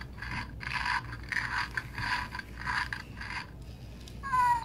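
LEGO EV3 robot puppy's brick speaker playing a chewing, crunching sound effect as it is fed, repeating about twice a second and stopping about three and a half seconds in. Near the end a short whine-like pitched sound follows.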